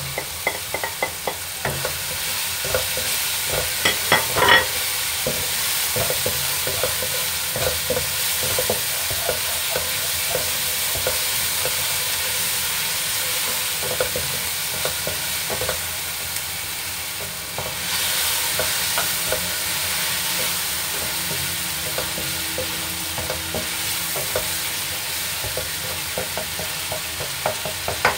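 Ground tomato-and-onion masala sizzling in a hot wok while a wooden spoon stirs it, knocking and scraping against the pan many times, with a louder clatter about four seconds in.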